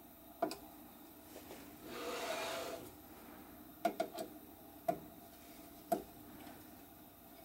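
Hands working on a 3D printer's frame: a few small, sharp clicks and knocks of tools and parts being handled, and a brief scraping rub about two seconds in.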